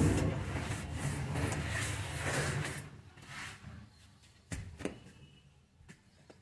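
Wooden straightedge scraped along fresh wet cement plaster, a continuous rough scraping for about three seconds. Then it stops, and two short light knocks follow close together.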